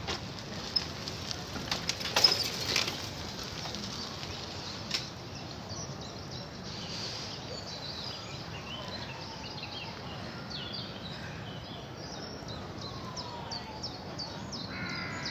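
Small birds chirping in short, high calls over steady outdoor background noise, with a brief run of sharp clatters about two seconds in.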